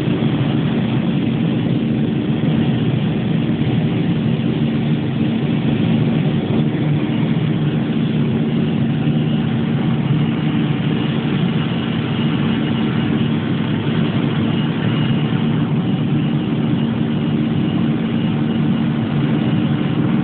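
Aircraft cabin noise during the climb after takeoff: the engines running at a steady, unchanging drone with a low hum, heard from inside the cabin.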